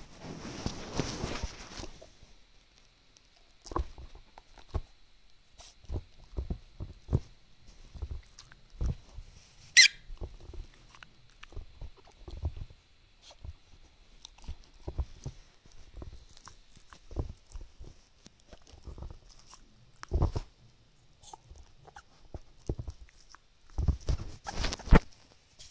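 Fox terrier chewing and gnawing a rubber ball toy up close: irregular soft chomps and clicks, with a brushing noise in the first two seconds. One short, sharp squeak about ten seconds in is the loudest sound, and there are heavier knocks around twenty seconds and near the end.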